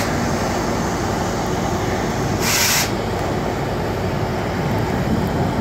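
Metra diesel passenger locomotive No. 86 pulling slowly into a station, its engine running steadily over the rumble of wheels on rail. A brief hiss about halfway through.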